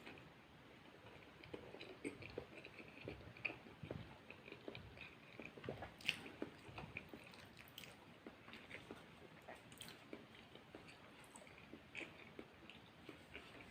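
Close-miked mouth sounds of a person eating spaghetti: wet chewing with many irregular small clicks and smacks, one louder click about six seconds in.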